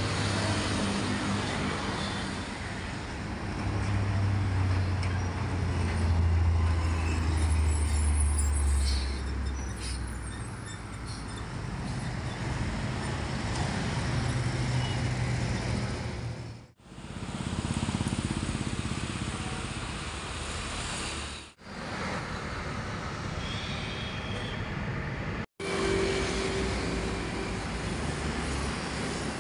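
Steady road traffic noise with a low engine rumble that swells for a few seconds about five seconds in. The sound drops out abruptly three times in the second half.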